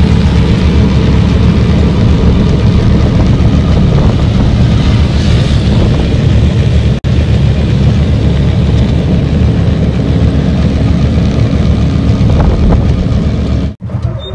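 Small motorcycle-rickshaw (chingchi) engine running loud and steady under way, with road and wind noise on the microphone. It cuts off abruptly about seven seconds in and again near the end.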